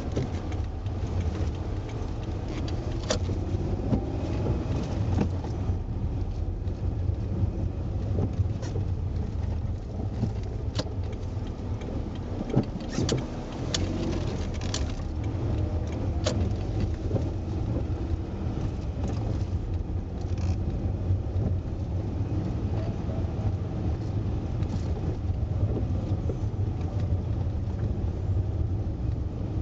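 Car driving, heard from inside the cabin: a steady low rumble of engine and tyres on the road, with scattered sharp clicks and knocks.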